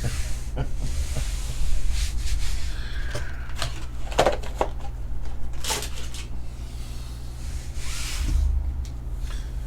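Trading-card packs and cards being handled: scattered light clicks and taps with brief rustling, over a steady low hum.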